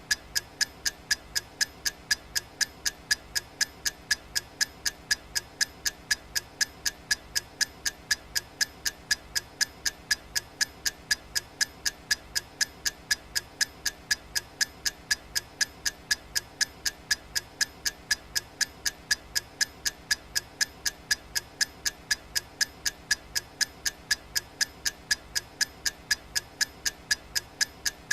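Countdown timer's clock-tick sound effect: sharp, evenly spaced ticks at a fast steady rate, about four a second.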